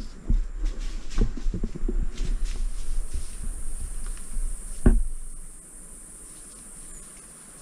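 Handling knocks and rustles as a 360 camera is set down among plants, with a louder thump about five seconds in. A steady high insect buzz runs underneath and is all that is left afterwards.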